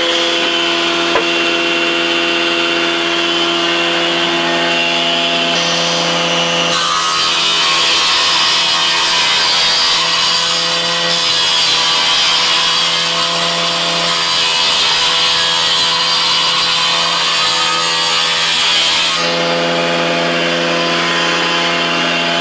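Stationary electric power saw running at speed with a steady hum, then cutting through a wooden board for about twelve seconds starting about seven seconds in, before running free again.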